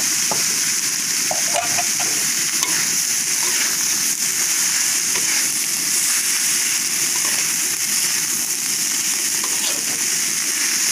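Stir-fry of papaya flowers and salted fish sizzling steadily in a wok while a metal spatula stirs and tosses it, with faint light scrapes.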